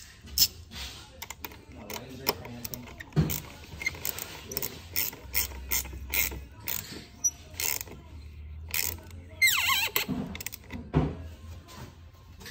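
A string of irregular mechanical clicks and clacks from hand work in a car's cabin, with a brief squeak about nine and a half seconds in, over a low steady hum.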